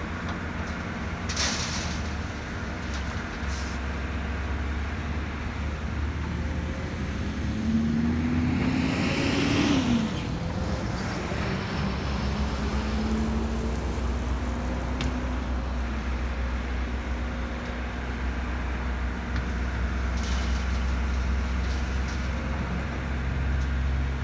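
Diesel engine of a Volvo EC330BLC excavator running steadily as it loads a dump truck, with a truck driving past close by, loudest about ten seconds in.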